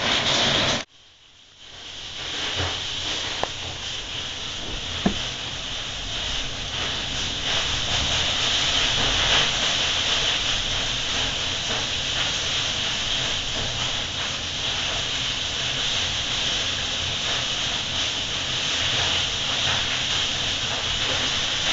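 Hail and heavy rain falling hard, a dense steady hiss. It drops out suddenly about a second in and builds back up within a second or two.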